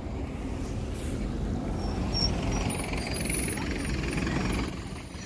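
City bus running close by, its engine rumble and road noise swelling and then fading about a second before the end, with a brief sharp sound about halfway through.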